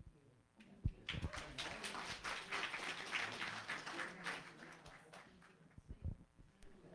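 Congregation applauding, starting about a second in and fading out over about four seconds, with a single thump just as the clapping begins.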